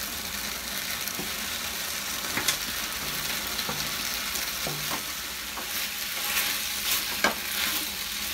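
Chilli sauce sizzling in a frying pan as deep-fried paneer cubes are slid in from a plate and stirred through with a spatula. There are a few sharp clicks of the spatula against the pan, coming more often near the end.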